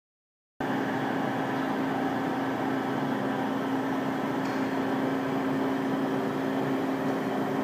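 Amada CNC hydraulic press brake running, its hydraulic pump motor giving a steady hum with one strong low tone.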